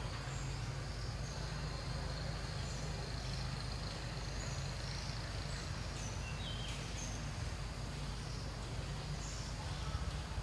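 Outdoor ambience: a steady low rumble and hiss, with a few faint, short high bird chirps now and then.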